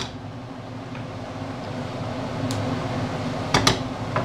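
Minced meat sizzling in a frying pan over a gas hob, with a steady hum beneath it. A wooden spoon knocks sharply against the pan a couple of times about three and a half seconds in, and once more near the end.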